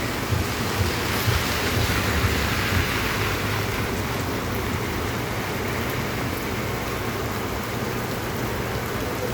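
Heavy rain falling on a city street: a steady hiss over a low rumble, the hiss swelling briefly a second or two in.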